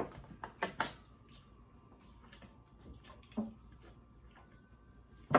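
Mouth sounds of people eating: chewing with scattered small wet clicks and smacks, most of them in the first second, and a short hum about three and a half seconds in.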